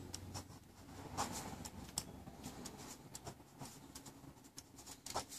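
The small ballpoint pen of a Swiss Army knife Manager writing a name on a notepad: faint scratching strokes with small ticks.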